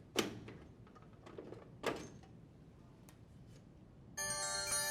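Washer backsplash panel being pulled out and slid free: two sharp clacks about a second and a half apart with faint scraping between. A held chord of background music comes in near the end.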